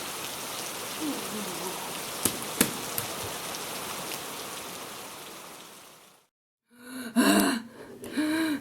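Cartoon downpour sound effect: a steady rain hiss with a few sharp drip clicks, fading out about six seconds in. After a short gap, a character's short wordless vocal sounds come near the end.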